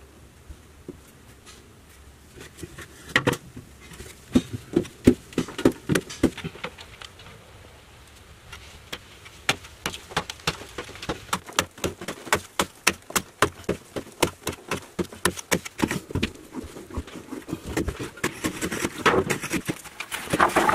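Hand-tool work in a dug-out earthen chamber: rapid, irregular knocks and scrapes, several a second, with a short lull near the middle.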